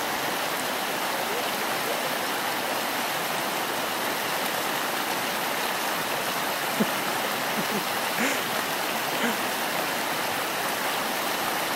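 Fast, shallow mountain stream running over rocks: a steady, even rush of water.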